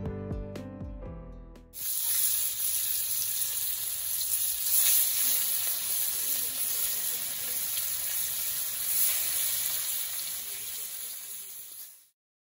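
Fish pieces sizzling as they fry in hot oil in a wok, a steady dense hiss that stops abruptly just before the end. It is preceded by a couple of seconds of soft guitar music.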